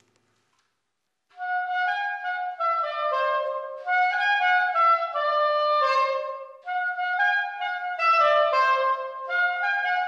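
Soprano saxophone playing a melody of short, mostly descending runs, starting about a second in, in a bare room with hard brick walls.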